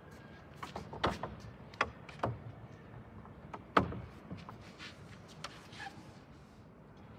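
A few sharp knocks and clunks of handling on a wooden upright piano as a tablet is set on it and the player settles at the keyboard. The loudest knock comes a little under four seconds in.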